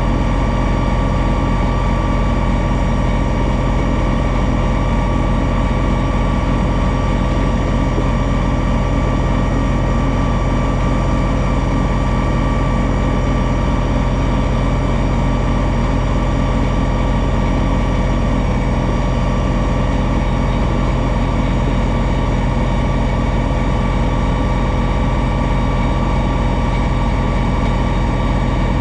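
John Deere 2032R compact tractor's three-cylinder diesel engine running steadily at working speed, driving its 60-inch front-mounted snowblower as it throws snow. The drone holds even, with no change in pitch or level.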